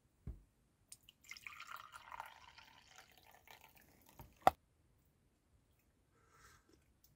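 Coffee poured from a thermos jug into a ceramic mug, a splashing trickle for a few seconds that tails off. A single sharp knock about four and a half seconds in is the loudest sound.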